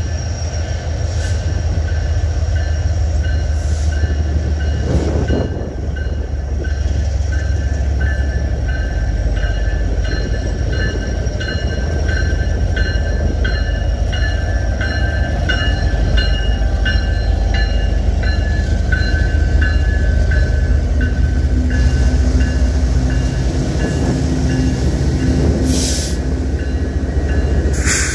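A string of diesel-electric freight locomotives rolling past close by. Their engines make a heavy, steady low drone, with several thin, steady high tones held above it.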